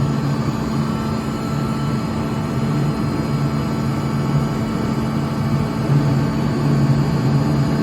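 11 kW direct-drive Atlas Copco screw air compressor running loaded with a steady hum and whine while it builds pressure in its air receiver, at about 3.5 bar and climbing.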